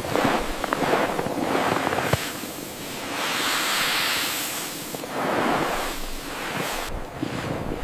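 Gusting wind that swells and fades twice, with irregular crackles and snaps, densest in the first couple of seconds.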